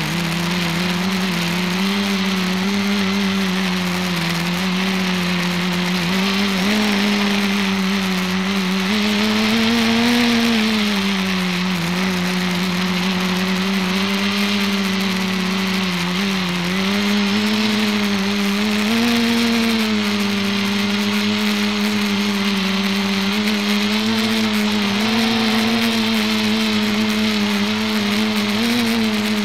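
ETFD2 flying-disc multicopter's motors and propellers humming in flight, close to the onboard camera. The pitch wavers up and down with throttle, rising about ten seconds in and dipping briefly about sixteen seconds in.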